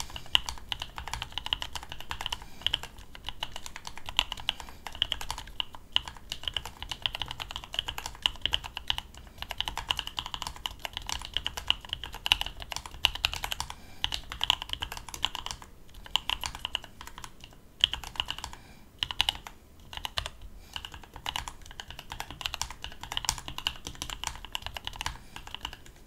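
Continuous two-handed typing on a DIY split mechanical keyboard built into plastic box lids: a dense run of key clicks and keystrokes with a few short pauses.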